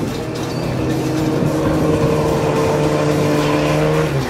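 A trophy truck's engine running as the truck drives the dirt course, under background music of long held notes.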